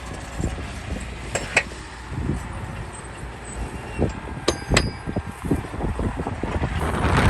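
Heavy earthmoving machinery running with a low rumble, broken by a few sharp metallic clanks that ring briefly, two about a second and a half in and two more near the middle.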